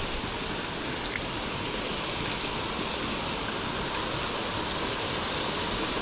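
Steady rush of water pouring over a small man-made rock spillway into a pool.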